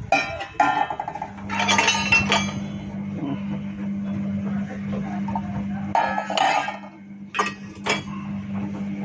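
Washed stainless-steel vessels and plates being handled and set down, clinking and ringing in several short bursts, with a steady low hum underneath.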